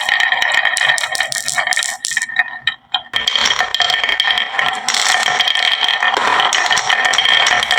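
Marbles rolling and clattering down a wooden HABA marble run track, a dense stream of rattling clicks with a short lull about two to three seconds in.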